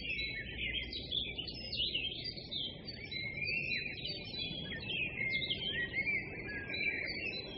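Small birds chirping and twittering: many quick overlapping chirps and short whistles over a steady low hiss.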